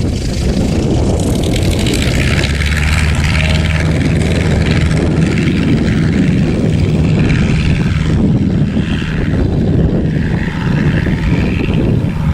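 Propeller aircraft engine running at a steady pitch, nearly buried under heavy wind buffeting on the microphone; the engine tone fades out after about eight seconds.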